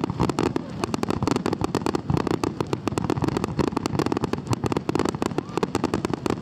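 Fireworks finale barrage: a dense, unbroken run of bangs, many a second, from many shells bursting at once.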